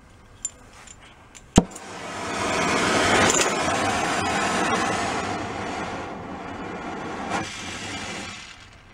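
A flint striker clicks, then an oxy-fuel gas torch lights with a sharp pop about a second and a half in. It burns with a steady hissing rush of gas and flame that swells over the next second, eases slowly, and dies away near the end.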